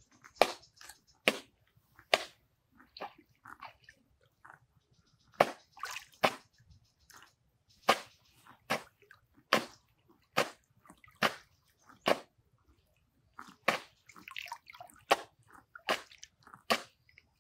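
Shallow canal water splashing and sloshing as men wade and work a hand net through it: short, irregular splashes, roughly one a second.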